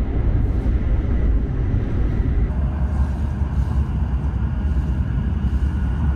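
Shinkansen bullet train running at speed, heard inside the passenger car: a steady, deep rumble of running noise.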